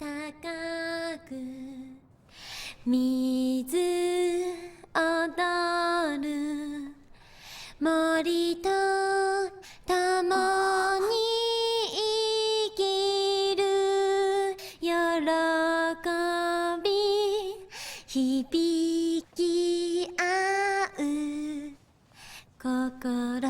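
A lone female voice sings a slow, lullaby-like melody. She holds long notes, some with a slight waver, in short phrases with brief pauses between them.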